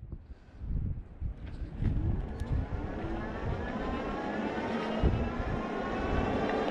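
Cyrusher Kommoda fat-tyre e-bike's 750-watt rear hub motor whining, the whine rising steadily in pitch as the bike picks up speed, over wind buffeting the microphone. A single knock about five seconds in.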